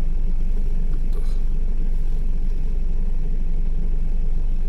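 Car engine idling with a steady low rumble while the car stands still.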